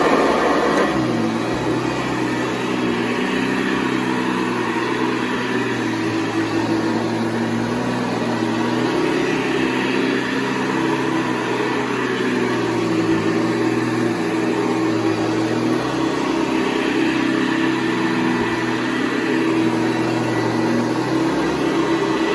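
1981 Hoover Convertible U4173 upright vacuum cleaner running steadily at full speed, its motor driving a 12-bladed metal fan in place of the original 11-bladed one.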